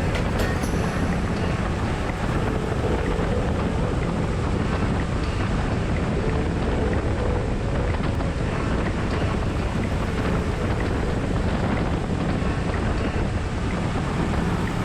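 Boat motor running steadily while trolling, with wind buffeting the microphone.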